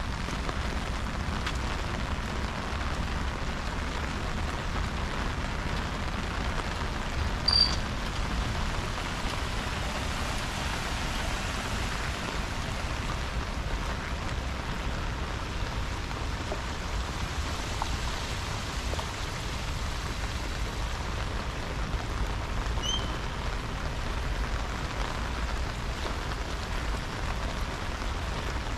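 Steady rain falling and pattering on surfaces, an even hiss with no let-up. A short high chirp cuts through about eight seconds in, and a fainter chirp comes near the end.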